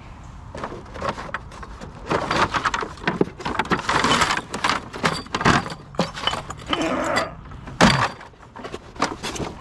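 Irregular clattering and knocking of scrap pieces being picked up and handled, with a louder bang about eight seconds in.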